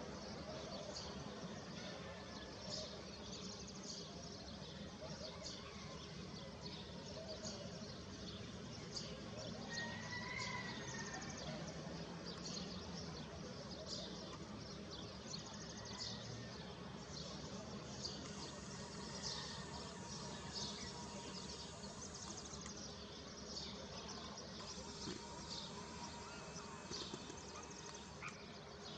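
Small birds chirping, many short high calls scattered throughout, over faint steady background noise.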